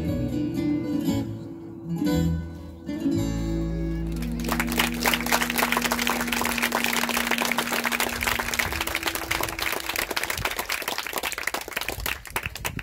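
Guitar strumming the closing chords of a hula song, then, about four seconds in, hand clapping and applause take over, with a long held note beneath it for a few seconds.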